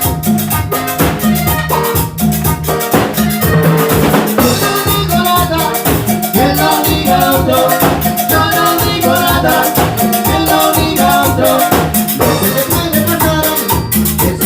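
A salsa band playing an instrumental passage at a rehearsal, with a steady beat of pulsing bass and busy percussion under a melodic line.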